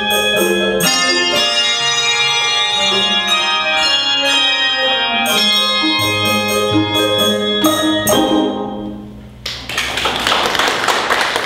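Handbell choir ringing the closing chords of a piece, sustained bell tones that end about eight seconds in and die away. Audience applause starts about a second later.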